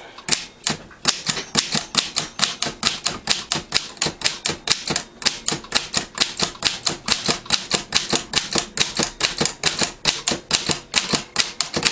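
Corona No. 3 typewriter keys struck one after another, each stroke a sharp clack of the typebar, at a steady pace of about four strokes a second.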